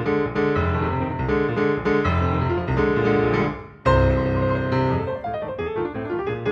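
Background music played on piano. It fades briefly a little before four seconds in, then comes back with a loud chord.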